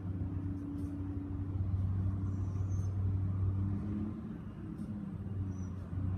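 A low, steady rumble and hum, easing slightly about two-thirds of the way in.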